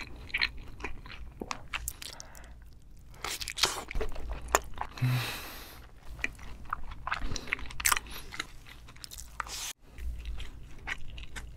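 Close-miked wet chewing and biting of raw salmon dipped in sauce: many small smacking clicks, with a brief 'mm' hum about five seconds in.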